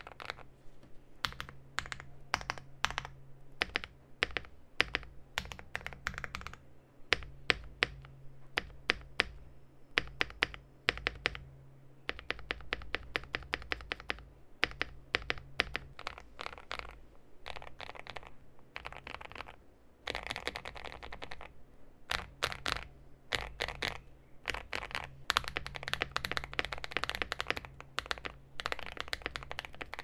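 Continuous typing on a Finalkey V65 R2 mechanical keyboard with lubed KTT Kang White linear switches, ABS Cherry-profile keycaps and a polycarbonate plate, tape-modded and foamed inside: a rapid, unbroken stream of key clacks.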